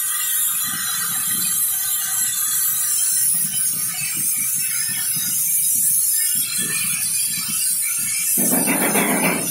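Glassworking gas torch burning with a steady hiss while the glass-spinning machine turns. A much louder rushing noise starts near the end.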